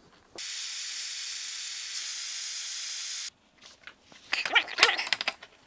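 A steady high-pitched hiss for about three seconds that cuts off suddenly, followed by a quick run of sharp metallic clicks and knocks.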